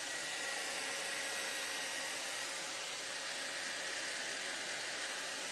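Handheld hair dryer blowing steadily: an even rush of air with a faint steady whine.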